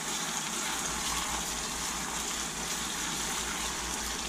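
Ground beef frying in a saucepan with a steady sizzle.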